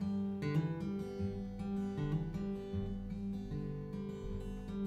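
Acoustic guitar strummed and picked in a roots-blues song, the chords ringing on between strokes.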